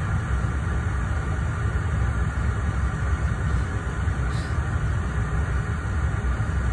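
Steady low engine rumble with road noise, unchanging throughout.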